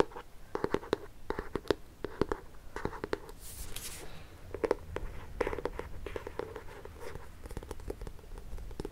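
Close-miked fingernails tapping and scratching on a book, in irregular clusters of short sharp taps, with a brief rustle about three and a half seconds in.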